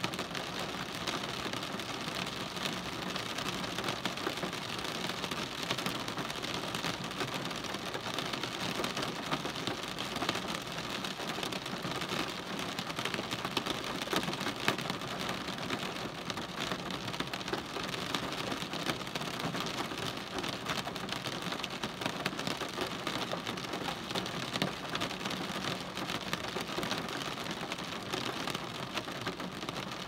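Rain falling on a car's roof and windshield, heard from inside the car: a steady, dense patter of many small drop impacts.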